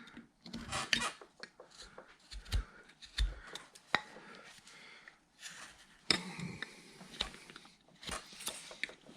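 Carving knife shaving wood from a hand-held carving blank: a run of short, irregular scraping cuts with small clicks, and a couple of dull knocks about two and three seconds in.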